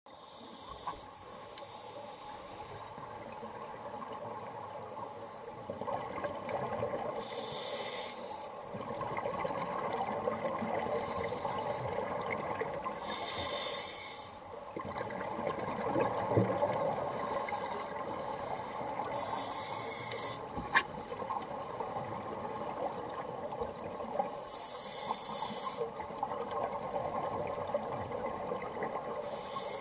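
Scuba diver breathing through a regulator underwater: a hiss on each inhalation, about every five to six seconds, with the bubbling of exhaled air between them. A single sharp click about two-thirds of the way through.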